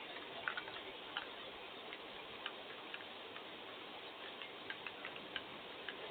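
Steady hiss of rain with scattered, irregular ticks of drops hitting a nearby surface.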